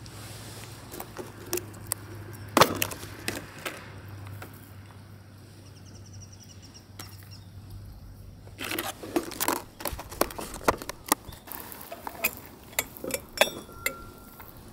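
Camp cookware and utensils clinking and knocking during cooking: scattered sharp clinks, the loudest a little under three seconds in and a denser run in the second half, over a low steady hum that stops about ten seconds in.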